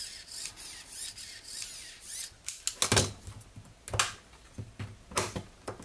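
Plastic LEGO Technic pieces clicking and knocking as they are handled and pressed together, with a run of sharp clicks in the second half.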